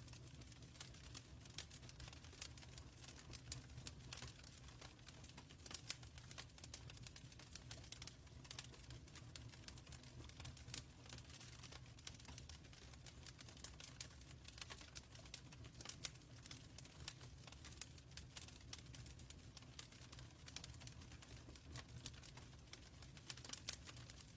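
Wood fire burning in a fireplace, crackling with frequent irregular small pops and snaps over a steady, quiet low rumble of flame.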